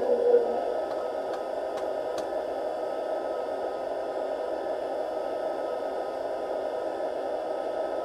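Steady hiss-like running sound from the sound decoder's loudspeaker in an LGB Ge 6/6 I Crocodile model locomotive standing still. A few faint clicks come in the first couple of seconds.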